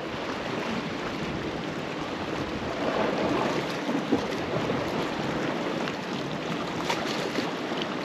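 Sea waves washing against rocks, one wave swelling louder about three seconds in.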